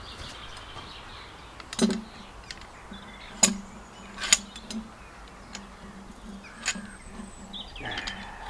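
A few sharp, separate clicks and knocks, like tools or gear being handled, over a faint steady low hum.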